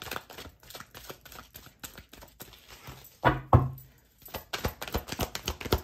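Tarot cards being shuffled by hand to draw a card: a run of quick papery clicks and flicks, with two louder knocks a little past halfway and a fast rattle of card flicks near the end.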